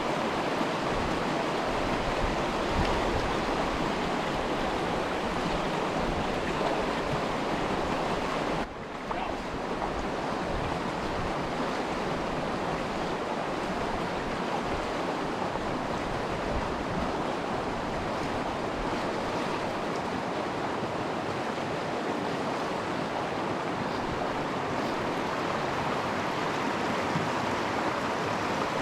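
Steady rush of flowing stream water, an even noise with a brief drop in level about nine seconds in.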